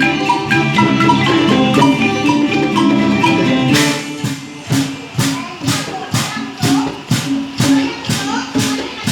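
Isan folk dance music: a pong lang log xylophone plays a quick melody, then drops out about four seconds in. After that comes a steady beat of sharp percussion strokes over a low note, about two a second.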